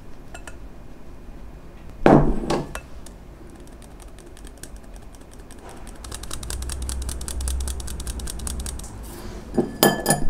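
Fine-mesh metal sieve tapped by hand to sift flour into a glass mixing bowl: a long run of rapid light taps, with a louder knock about two seconds in and a few sharp clinks near the end.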